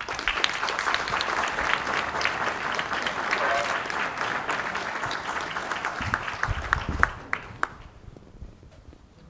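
Audience applauding: a dense patter of hand claps that thins out to a few last separate claps and stops about seven to eight seconds in.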